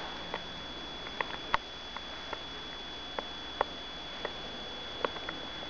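Irregular sharp clicks, about two a second and unevenly spaced, the loudest about one and a half seconds in, over a steady hiss with a thin high whine.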